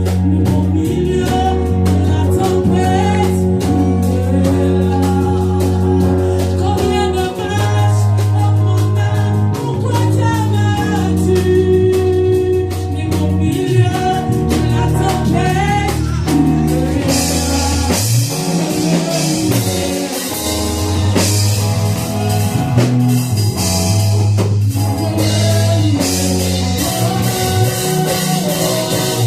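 Gospel worship song with singing over a band of bass, drums and other instruments; cymbals come in strongly a little past halfway.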